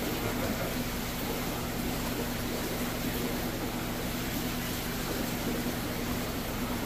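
Steady low hum with a constant wash of running, bubbling water from aquarium pumps and filtration.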